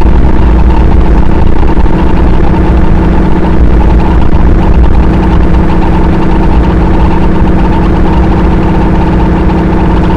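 Harsh noise music: a loud, dense wall of distorted low rumble with steady droning tones held over it.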